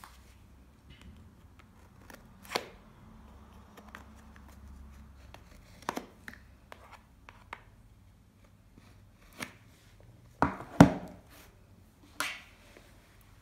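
Cardboard phone box being handled: scattered scrapes and sharp clicks as the paper seal tab is pulled and torn and the box is turned over and set down. The loudest two knocks come close together about ten and a half seconds in.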